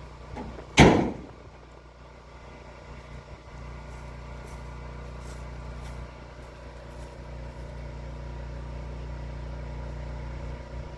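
1972 Ford F-250 pickup's engine running steadily at low speed, with one loud sharp bang about a second in.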